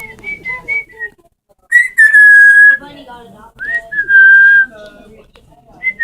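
Parrot whistling: a quick run of short chirps, then two loud drawn-out whistles, the second sliding up into a held note, with lower chattering between them.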